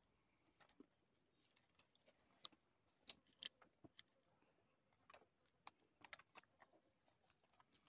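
Near silence broken by faint, irregular small clicks and ticks.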